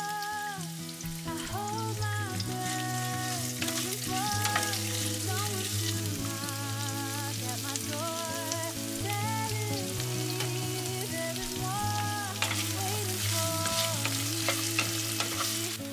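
Sliced onions and whole spices sizzling in hot oil in a frying pan over a medium-high gas flame, turned with a wooden spatula; the sizzle grows louder near the end. Background music with a melody and a steady bass line plays throughout.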